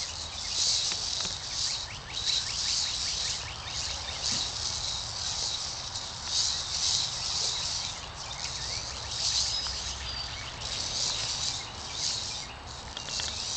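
Insects buzzing in a high, pulsing chorus that swells and fades about once or twice a second, over a low steady background hum.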